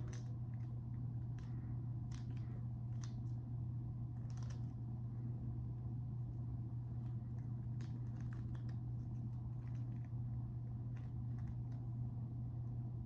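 Freight train passing, heard from indoors through a closed window: a steady low rumble with scattered irregular clicks and clanks.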